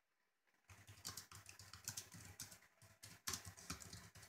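Typing on a laptop keyboard: a quick, irregular run of key taps starting a little under a second in.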